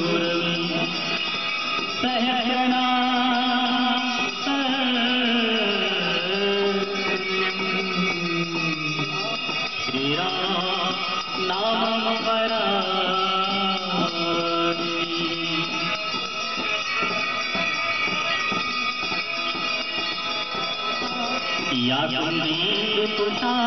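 Devotional aarti hymn being sung, with long held notes that slide slowly up and down.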